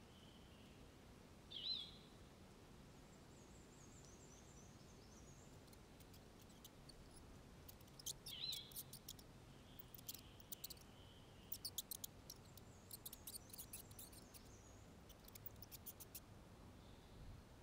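Faint outdoor garden ambience with small birds calling: a short, sharp call about two seconds in and another about eight and a half seconds in, with runs of very high, quick chirps through the middle.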